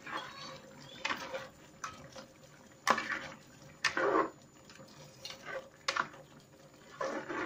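Scattered kitchen clatter: a utensil knocking and scraping against a pan of saucy chicken, with wet, liquid sounds in between and a couple of sharp knocks.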